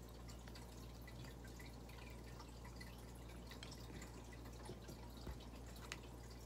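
A lemon squeezed by hand over a plate of fried tilapia: faint drips and small ticks over a low steady hum, with a couple of sharper ticks about five and six seconds in.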